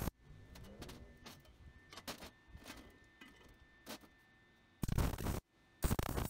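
Electric arc welding a brake-pedal bracket in short bursts: harsh crackling welds of half a second to a second, two of them near the end. Quieter clicks and light metal handling sounds fall between the welds.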